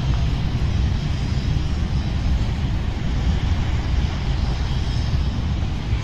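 Steady rumbling roar of a violent sea storm: wind buffeting the microphone over the roar of heavy surf breaking on the shore.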